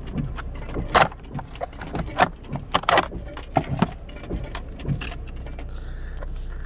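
Plastic steering column trim cover being pried and pulled off its clips: an irregular run of sharp clicks, snaps and rattles, loudest about a second and two seconds in, thinning out after about five seconds.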